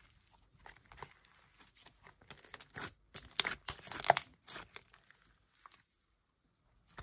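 Slime being squished and stretched by hand, giving irregular sticky crackles and pops that are loudest a little past the middle, then falling almost silent near the end.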